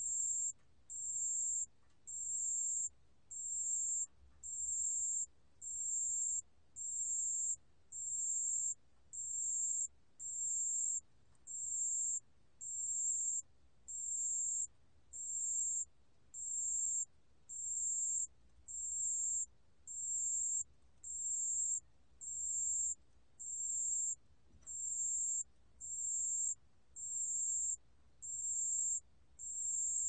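담색방울벌레 (a Korean bell cricket species) singing at 28 °C: a high-pitched, clear chirp about three-quarters of a second long, repeated evenly about once a second.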